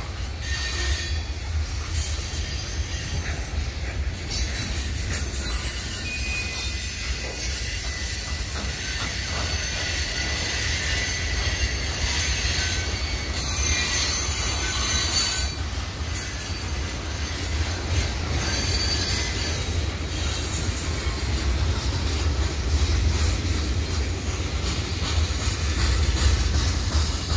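Freight cars' steel wheels on a sharp curve: a steady rumble of wheels on rail, with high flange squeal coming and going as the cars grind around the curve.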